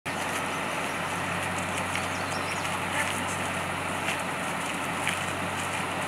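Rescue truck engine idling steadily with a constant low hum, and faint short ticks about once a second.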